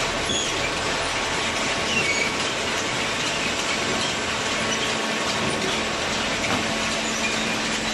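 Automatic cardboard baler running: a steady, dense mechanical clatter and rumble with short, high metallic squeaks scattered through it. A low steady hum comes in near the end.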